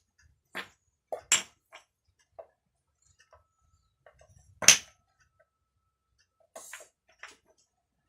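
Wooden toy blocks knocking and clacking against each other as they are handled and stacked: a scatter of sharp clicks, with the loudest knock about four and a half seconds in.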